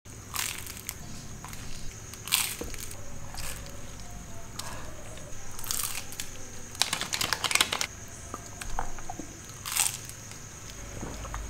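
Close-up crunching and chewing of a folded, toasted taco: a string of crisp bites every second or two, with the longest run of crunching about seven seconds in.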